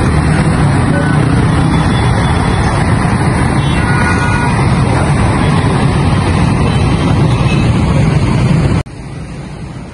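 Busy city road traffic: a dense, steady mix of car and motorbike engines and tyre noise, heaviest in the low end. It cuts off abruptly near the end, leaving a much quieter background.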